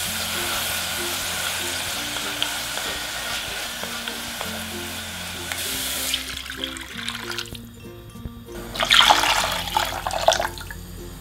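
Sliced beef and garlic sizzling in an enamelled cast-iron pot. About six seconds in, water is poured onto the hot pan and the sizzle gives way. A second, louder pour of liquid comes about nine seconds in and lasts a second and a half. Light background music plays throughout.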